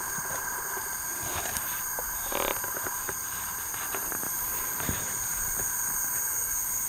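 Steady chorus of night insects, several high-pitched drones held at even pitch, with scattered light rustles and clicks of handling.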